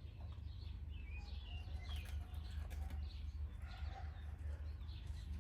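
Small birds chirping over a steady low hum, with a few light clicks about two to three seconds in.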